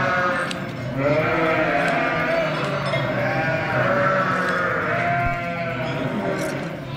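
Several sheep bleating, one call after another and often overlapping, through the whole stretch.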